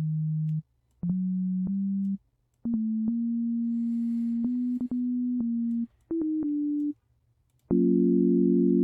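ZynAddSubFX synthesizer notes, smooth pure tones played one or two at a time and held for a second or so, stepping up in pitch with a click at each start and stop and short silences between. Near the end a full chord of several notes sounds together and holds.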